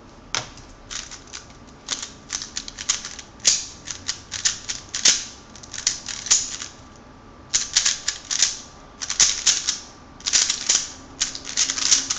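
Speedcube being turned fast by hand: runs of rapid plastic clicking as the layers snap around, broken by short pauses and one longer pause of about a second a little past halfway.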